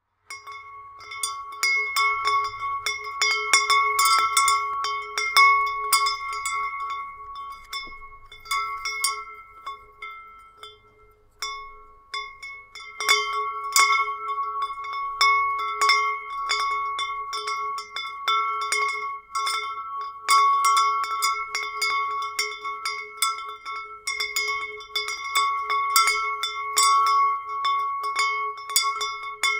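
Wind chimes ringing, struck irregularly and often by the wind, the same few tones ringing on and overlapping. They go quieter for a couple of seconds about ten seconds in, then pick up again.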